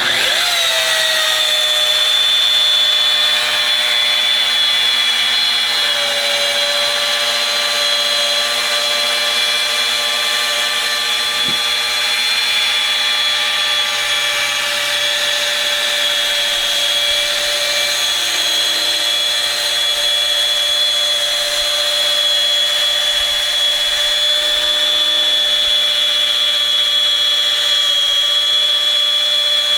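An electric rotary polisher starts up and spins to speed within about a second. It then runs steadily with a high whine, buffing compound into a boat's gel coat. Its pitch drops slightly about six seconds in.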